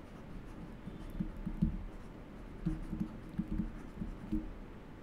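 Stylus strokes on a pen tablet as a word is handwritten: a run of light taps and scratches.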